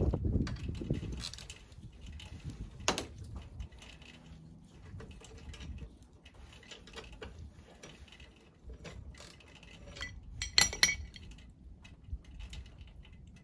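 Light metallic clinks and ticks of hand tools and bolts being handled while a bolted rack is worked loose. There is a dull rumble at the start and a louder burst of clinking about ten and a half seconds in.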